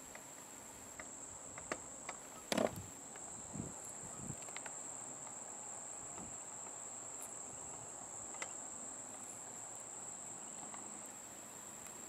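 Steady high-pitched chirring of an insect chorus, crickets or katydids. A few short clicks and knocks come through between about one and a half and four and a half seconds in, the loudest a sharp knock a little over two and a half seconds in.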